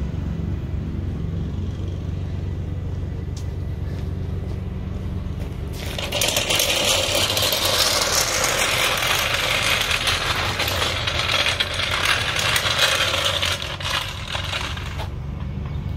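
Electric arc welding on the steel smoker frame: a steady frying crackle that starts about six seconds in and stops about nine seconds later.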